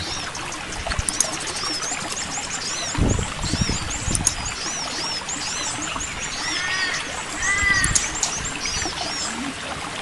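Wild forest birds calling with many quick, high arched chirps, over a steady trickle of water running between rocks. A louder run of lower, ringing calls comes about two-thirds of the way through, and a few low bumps sound around the middle.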